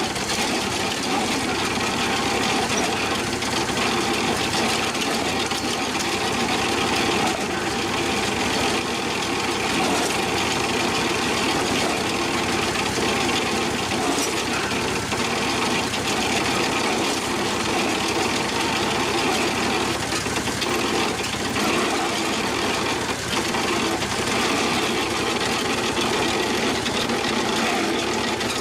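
An engine running steadily at an even level.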